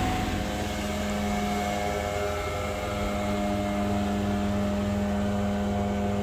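Houseboat engine running steadily while the boat is under way, an even hum.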